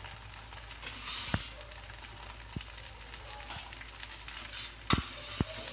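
Thin egg omelette frying in a little oil in a frying pan: a steady soft sizzle, broken by a few sharp clicks, the loudest about five seconds in.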